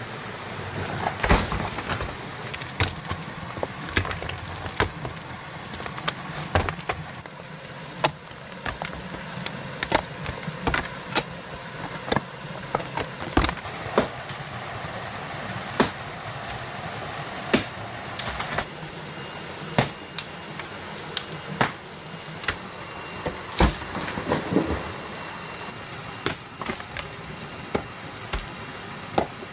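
Hand tools striking earth and rock: irregular sharp knocks and thuds, about one every second or two, over a steady background hiss.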